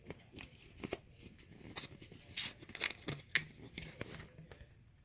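Plastic bottle crackling and clicking as its cap is twisted off, in irregular bursts with a few louder cracks after the middle.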